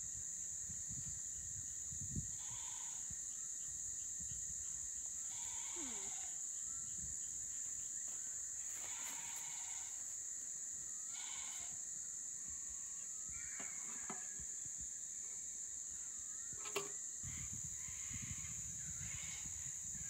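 Steady high-pitched chorus of night insects, with short animal calls, some wavering in pitch, scattered over it and a little low wind rumble.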